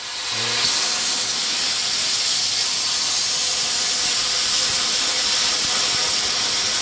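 Arccaptain Cut50 plasma cutter cutting through steel square tubing: a steady, loud hiss of the air-and-arc jet, starting just under a second in and holding even.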